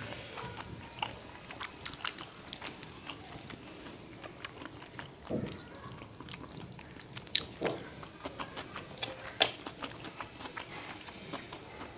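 Close-miked chewing of instant noodles, with many short wet mouth clicks and smacks.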